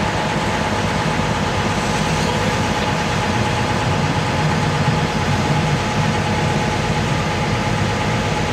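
Small harbour ferry's engine running steadily while the boat is underway, an even drone that does not change.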